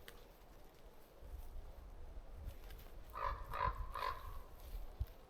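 A bird calls three times in quick succession, with short, harsh, honking calls. A low rumble sounds underneath.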